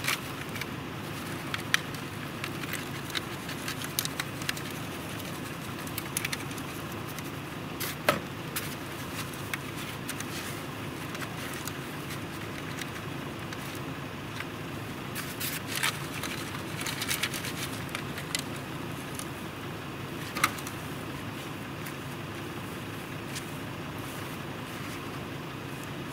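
Dirt being shaken through a hand sifter and spread by gloved hands over a bedded foothold trap: soft scratchy rustling with scattered clicks and scrapes, the sharpest about 8, 16, 17 and 20 seconds in, over a steady low hum.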